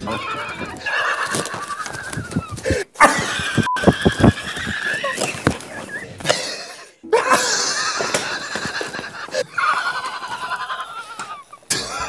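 Wheezing, high-pitched laughter: long, breathy squealing laughs that sound like a horse's whinny. They come in three bouts, each broken off abruptly, about three seconds in and about seven seconds in.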